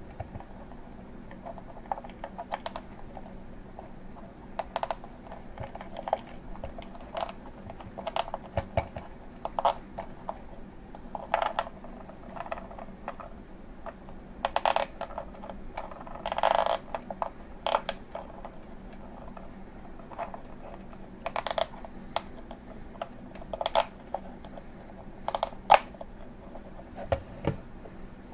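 Irregular light clicks, taps and short rustles of hands handling wires and plastic cable ties against a clear acrylic case. There is one longer rasp about halfway through.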